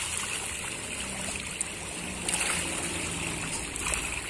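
Water splashing and churning steadily as a dense shoal of pangasius catfish thrashes at the surface of an earthen pond.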